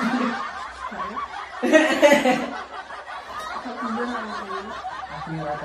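A woman laughing and chuckling, with a loud burst of laughter about two seconds in, and bits of talk mixed in.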